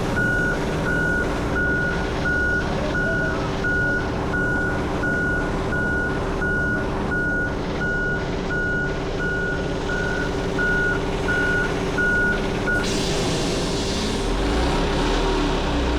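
Concrete mixer truck's backup alarm beeping steadily, about once every 0.7 s, over the truck's running engine. The beeping stops near the end, and a louder rushing noise takes over.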